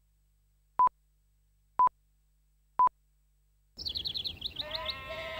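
Three short, identical beeps a second apart, the countdown tone on a commercial's slate. A little under four seconds in, birds start chirping, with quick high chirps and then lower whistled calls.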